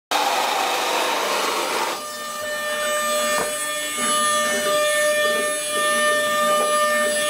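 CNC router spindle running with a steady high whine. For about the first two seconds the bit is heard cutting into the wood, a rough hiss over the whine.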